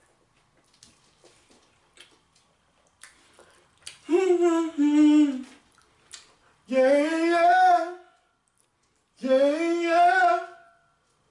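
A man humming with his mouth closed while eating, three drawn-out phrases of about a second each, starting about four seconds in. Before them, only faint scattered clicks and taps.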